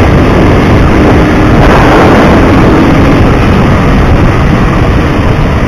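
Hero Xtreme 200S single-cylinder motorcycle running on the move with a loud exhaust, mixed with heavy wind buffeting on the microphone.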